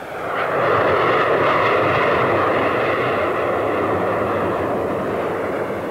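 Jet noise of a low-flying BAC Jet Provost jet trainer passing overhead. The loud, steady noise swells in within the first second and slowly fades toward the end.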